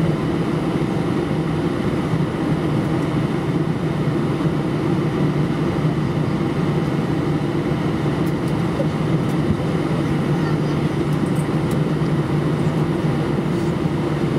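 Steady cabin drone of an Airbus A319 taxiing at low speed, its CFM56 engines at idle under the air-conditioning hum. It is an even, low-pitched noise with no change in level.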